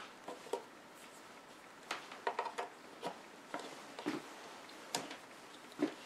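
Scattered light clicks and taps, about a dozen irregularly spaced, as test leads are handled and connected to a volt-ohm meter on a workbench.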